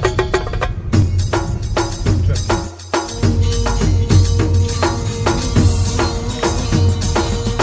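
Music with quick, evenly spaced percussion strikes over a pulsing bass beat. The bass drops out briefly about three seconds in.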